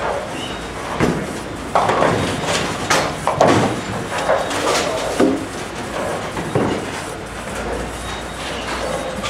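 Bowling alley din: balls rolling and pins clattering on nearby lanes make a steady rumble, broken by sharp crashes five or six times, with faint background chatter.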